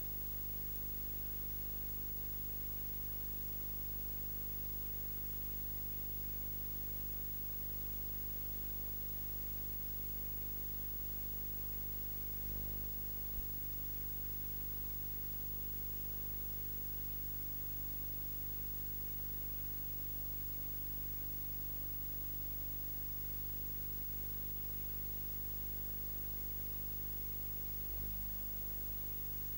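Steady electrical hum and hiss, with no real sound picked up, because the camcorder's microphone was unplugged. A couple of faint low bumps come about halfway through and near the end.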